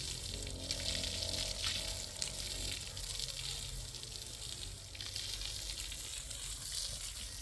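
Food frying in a pan: a steady sizzle with small crackles.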